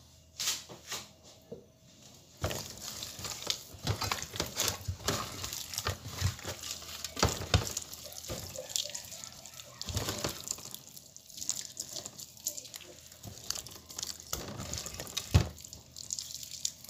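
Hands rubbing and kneading seasoning into a raw whole chicken in a metal baking tray: irregular wet squelches and slaps starting about two seconds in, with a few sharper knocks.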